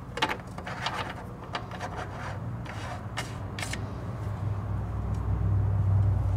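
Clicks and scrapes of a threaded cap being screwed down onto a power steering fluid reservoir. A low steady hum comes in and grows louder over the second half.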